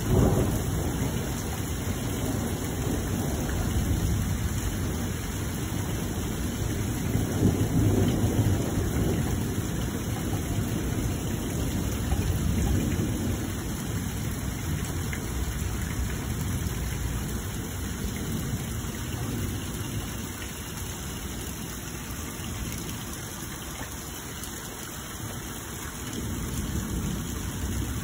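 Rain falling steadily through a thunderstorm, with low thunder rumbling that is strongest at the start, swells a couple more times and then dies away.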